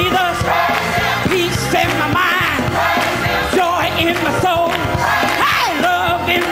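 Live gospel music: a singer's voice sliding and ornamenting over organ-and-band accompaniment with a steady bass, the congregation clapping along.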